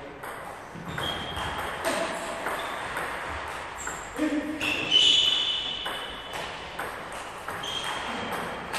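Table tennis rally in doubles: a celluloid/plastic ball clicking sharply off rubber-faced paddles and the tabletop in quick succession, several clicks a second. Short high squeaks, from shoes on the hall floor, come in among them, loudest around the middle.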